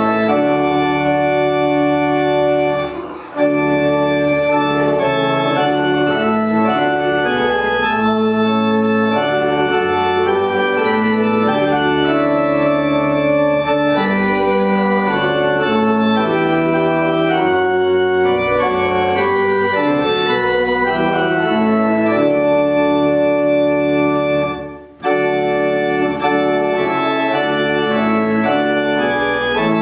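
Church organ playing a hymn in held chords, with two brief breaks between verses, about 3 seconds in and again about 25 seconds in.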